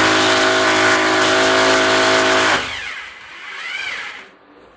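Corded electric drill boring into the wall, running at a steady speed, then stopping abruptly about two and a half seconds in. A quieter whir follows that rises and falls in pitch.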